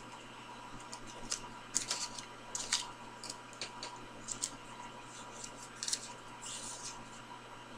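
Folded sticky-note paper being handled: scattered small crinkles and taps of stiff paper, clustered about two to three seconds in, with a brief papery rustle near the end.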